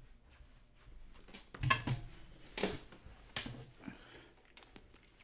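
A few short thumps and rustles of handling or movement, the loudest about two seconds in, with a quiet room between them.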